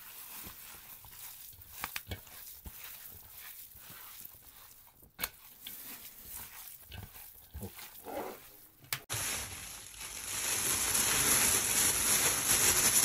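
Bare hands kneading and mixing minced meat in a steel bowl: soft wet squishing with scattered light clicks. About nine seconds in it gives way suddenly to a much louder, steady rustling hiss of a plastic bag being worked over cubed meat.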